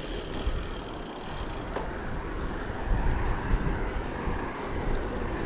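Wind buffeting the action-camera microphone, with tyre and road noise from a bicycle riding along a road: a steady hiss over an uneven low rumble.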